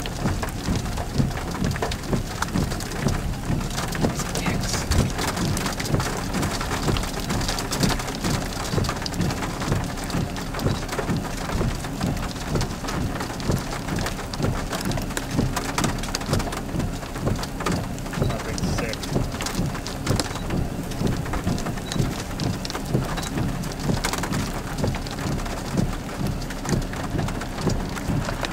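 Storm wind outdoors: a steady rushing noise with frequent irregular low thumps and crackles.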